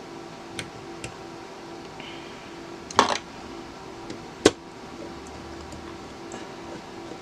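Small metal parts and a tool being handled while working on a rotary phone's wiring. A few light clicks, then two sharp knocks about a second and a half apart, the first with a short rattle. A steady low hum runs underneath.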